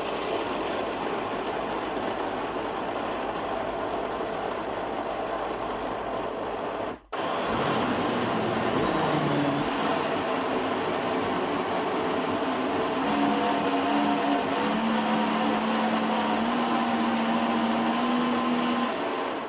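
Electric kitchen blender running, blending citrus fruit with the peels. It stops for a moment about seven seconds in, starts again, and runs with a steadier hum in its second half.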